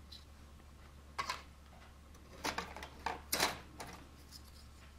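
Plastic model-kit parts trees being handled: a few short rustles and clicks, about one, two and a half and three and a half seconds in, over a steady low hum.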